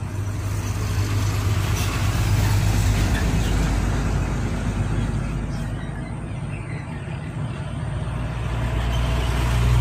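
Road traffic close by: a vehicle engine's low rumble swells over the first few seconds and fades, then another grows louder near the end.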